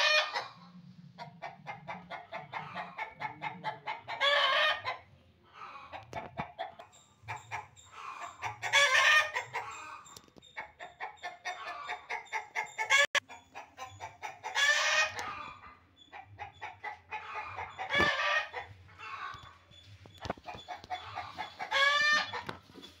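Rooster crowing about six times, a few seconds apart, with rapid clucking from chickens between the crows.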